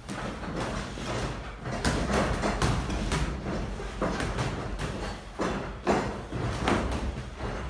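Boxing gloves smacking into gloves, arms and headgear in sparring: a string of irregular sharp impacts, some in quick pairs and flurries.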